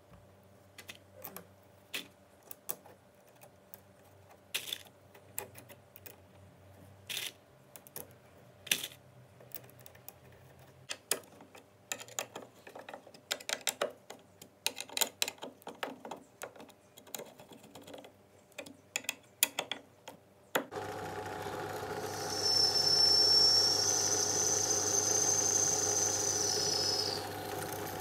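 Scattered clicks and taps from steel hinges being screwed onto aluminium plates with a hand screwdriver. About 21 s in, a bench drill press starts running. Its bit then cuts into an aluminium plate with a high squeal for a few seconds.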